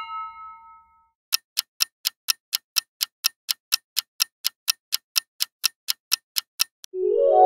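Clock-ticking sound effect for a quiz countdown timer: quick, even ticks at about four a second for around five and a half seconds, marking the time running out to answer. The ringing tail of a previous chime fades in the first second, and a new chiming sound begins just after the ticks stop near the end.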